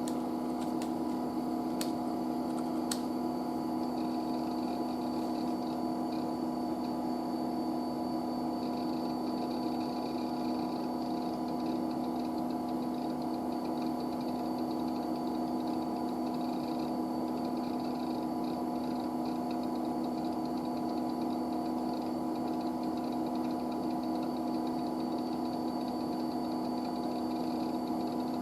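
IBM 9535 running with a steady, multi-toned mechanical hum. A few sharp clicks come in the first three seconds, and faint, irregular high-pitched chatter comes and goes later.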